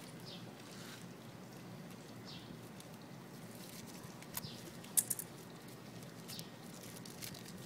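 A bird chirping faintly, short falling chirps about every two seconds, over small clicks and crinkles from fingers unfolding a small paper packet; a sharp click about five seconds in is the loudest sound.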